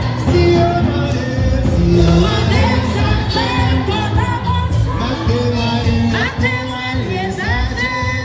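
A hymn sung with instrumental accompaniment: a sung melody with sliding notes over a steady low accompaniment.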